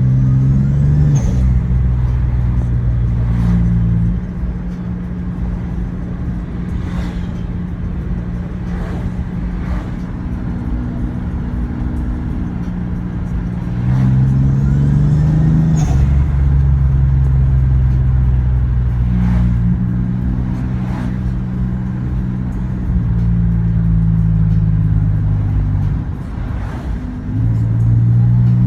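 Toyota Aristo's 2JZ-GTE twin-turbo inline-six engine running, its speed stepping up and down several times. It carries the whine that the owner says sounds almost like a supercharger between 1,200 and 3,000 rpm, with no fault codes or smoke to explain it.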